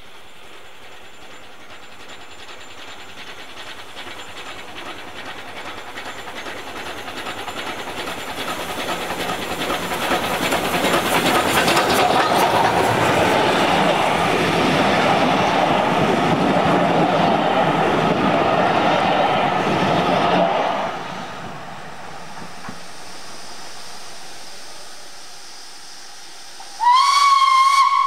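A steam train approaching and running past, its noise building over several seconds and staying loud for about ten before dropping away sharply. Near the end a steam locomotive's whistle sounds, one tone that slides up in pitch as it opens and then holds.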